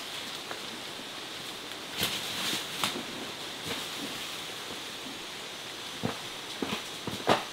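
Steady rain, with a few irregular knocks and rustles, the loudest near the end.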